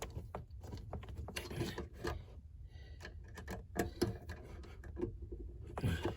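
Irregular light clicks and taps of small hand tools and screws being handled against a metal mounting plate.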